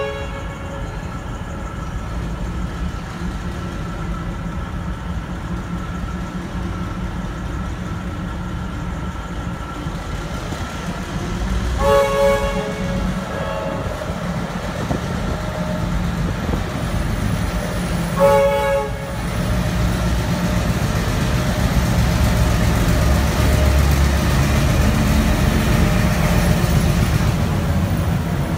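Y class diesel shunting locomotive's three-chime horn giving two short blasts, about 12 s and 18 s in, over the steady low rumble of its engine and train. The rumble grows louder in the last third.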